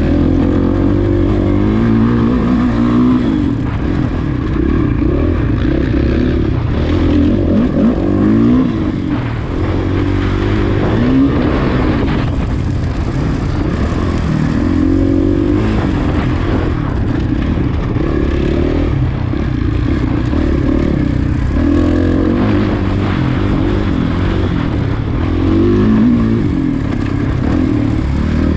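Off-road dirt bike engine revving up and falling back again and again as it accelerates and shifts through a race lap, over a steady low rumble and noise.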